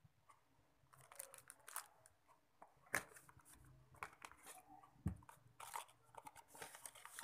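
Faint rustling and clicking of hands handling a plastic-wrapped pack of paper wax strips and opening a cardboard box to take out a jar of wax cream, with a sharp click about three seconds in and a dull thump about five seconds in.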